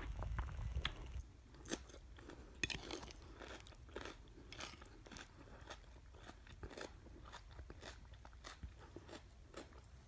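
Chewing of crisp raw salad of lettuce, red cabbage and shredded carrot: an irregular run of short crunches, the sharpest about two and a half seconds in.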